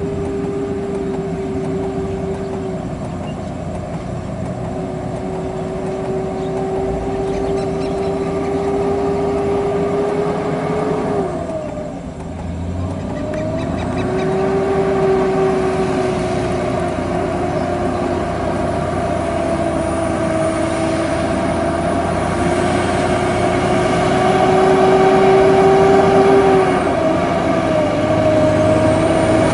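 Heavy diesel engines working hard under load: a Scania coal-hauling road train climbing a slippery grade, with a wheel loader pushing it from behind because the truck cannot make the climb on its own. A steady whining engine note dips sharply about twelve seconds in and climbs back, then dips briefly again near the end.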